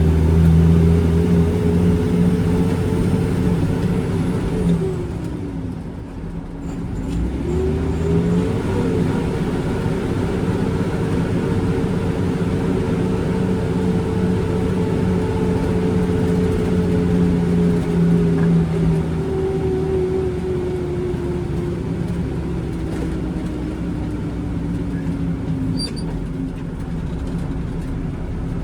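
Loaded concrete mixer truck's diesel engine pulling on the road. Its note drops and climbs back about six seconds in, as at a gear change, and later sinks slowly.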